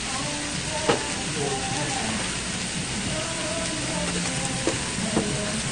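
Pork belly (samgyeopsal) sizzling on a hot grill plate, a steady hiss, with a sharp click about a second in.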